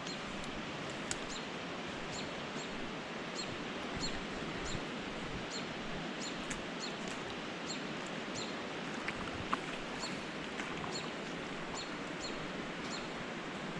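A small bird calling one short, high, down-slurred chirp over and over, about two a second, over a steady rushing noise.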